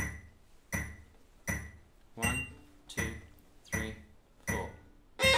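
Metronome ticking a steady count-in, seven clicks about three quarters of a second apart, each with a short bright ring. A violin starts playing just before the end.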